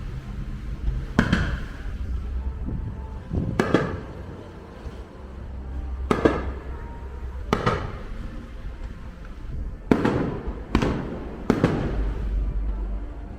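Fireworks bursting overhead: seven separate booms, one to two and a half seconds apart, each trailing off briefly, over a steady low rumble of wind on the microphone.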